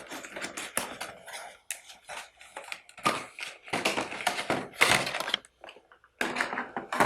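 Hands handling and opening product packaging: irregular rustling and scraping with sharp taps and clicks, the busiest stretch in the middle.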